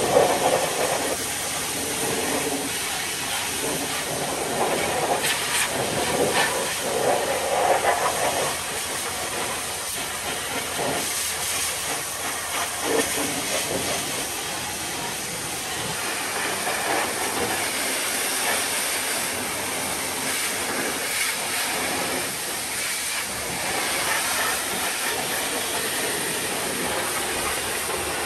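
Pressure-washer lance spraying a truck's wheel rim, tyre and wheel arch: a steady hiss of high-pressure water with splashing, a little louder and more uneven in the first eight seconds.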